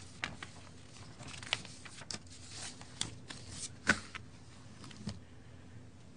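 Sheets of paper being handled and turned over at a lectern, close to its microphone: a run of irregular rustles and crisp clicks, the sharpest snap about four seconds in, stopping about five seconds in.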